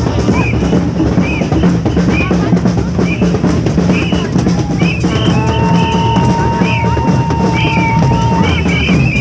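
Drums playing a steady beat, with a long held higher tone joining in for about three seconds from around halfway through.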